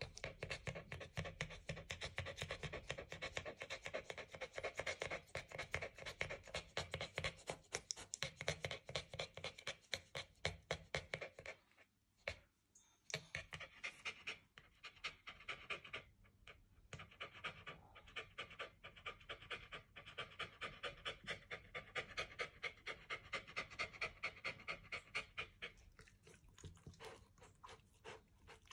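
Shiba Inu dog panting rapidly and steadily with its mouth open, breaking off briefly about twelve seconds in before resuming.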